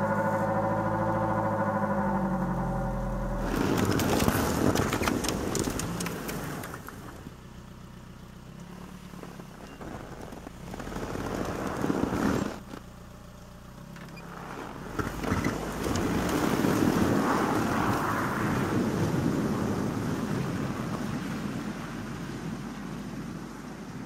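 First-generation Toyota RAV4's engine idling steadily right after a start in hard frost, its exhaust close by. The SUV then moves off through deep snow and drives away, the engine and tyre noise swelling and then fading as it goes.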